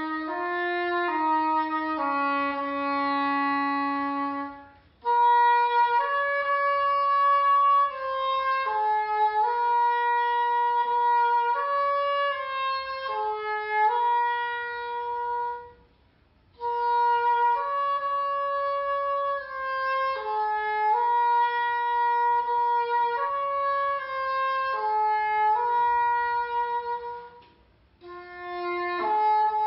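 Solo oboe playing an unaccompanied melodic passage in connected phrases, moving from lower notes into a higher register. It stops briefly three times, about 5, 16 and 28 seconds in.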